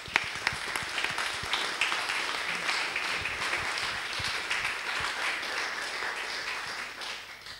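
Audience applauding: a dense patter of many hands clapping that starts right away and fades out near the end.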